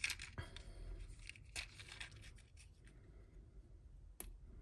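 Faint rustling of a cardboard earring card and small clicks of metal stud earrings and their backs under the fingers, with one sharper click about four seconds in.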